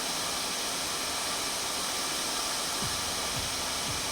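Hot air rework station blowing a steady hiss of hot air, heating a logic board area to melt the solder.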